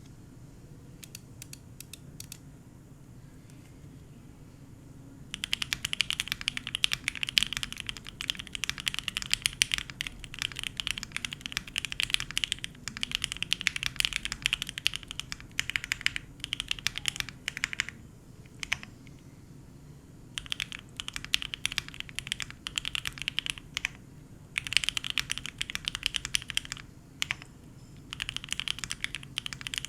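Typing on a custom Cannonkeys Savage65 mechanical keyboard with lubed 43Studio OpBlack linear switches on a POM plate and GMK keycaps. A few single key presses come first, then fast runs of clacky keystrokes from about five seconds in, broken by short pauses.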